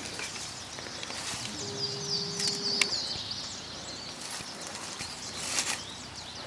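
A German shepherd stepping and sniffing through dry fallen leaves: scattered rustles and crunches of the leaf litter under its paws. A bird chirps briefly about two seconds in.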